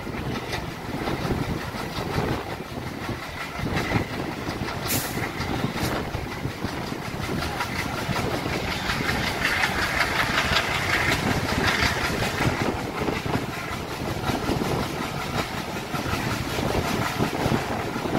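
Train running, heard from a coach behind a WDM3A ALCO diesel locomotive with a 16-cylinder ALCO 251 engine. The locomotive's engine chugs steadily under load over the running noise of the wheels on the rails, and there is one sharp click about five seconds in.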